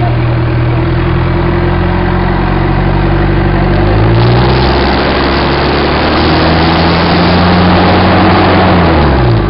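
Toyota Tamaraw FX diesel engine being revved for a smoke-belching test. It runs at a raised speed, climbs higher about four seconds in and holds there, then drops back just before the end.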